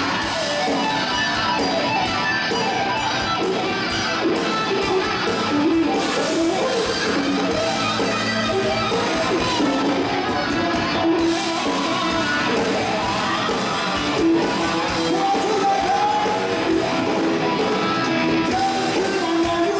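Live rock band playing an electric-guitar-driven song, with a male lead singer singing over it.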